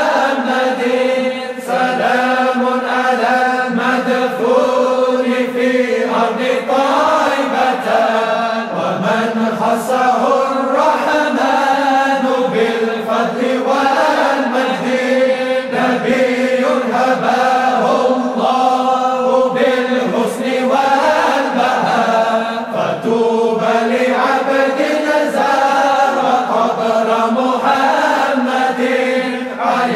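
Voices chanting Islamic dhikr, a continuous melodic devotional chant held on long, gliding notes.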